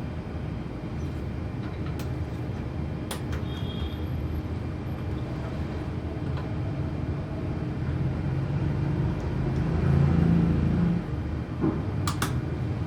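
A steady low rumble that swells briefly near the end, with a few sharp clicks of small metal contact parts being handled and fitted: one about two seconds in, one about three seconds in, and a quick pair near the end.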